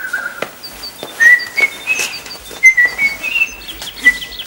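Someone whistling a tune: a run of short, clear notes that step up and down in pitch.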